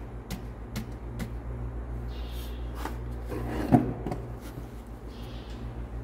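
Piston being tapped down into a cylinder liner of a Caterpillar 3406B diesel block with a wooden hammer handle: a few light taps, then a louder knock a little past halfway.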